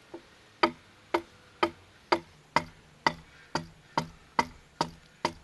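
Long-handled adze chopping into a large structural timber with short, even strokes, about two a second, shaving it down to a marked line.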